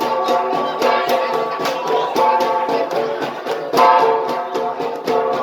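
Ensemble of gangsa, the flat bronze gongs of the Igorot, struck in a fast, even rhythm of several beats a second, their tones ringing on between strikes, playing for a pattong dance.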